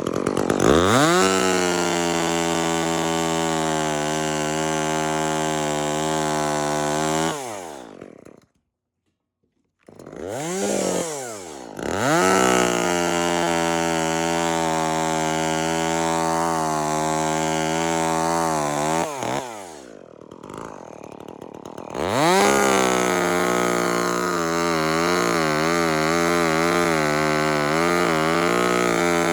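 Chainsaw cutting dead birch wood: it revs up to full throttle and holds steady in three long spells, dropping back to a low idle between them, with one short blip of the throttle in between and a break of dead silence near the end of the first spell.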